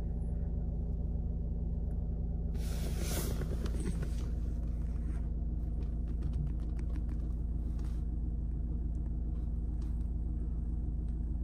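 A vehicle engine idling steadily with a low rumble, heard from inside a car's cabin. A brief rushing noise comes through about three seconds in.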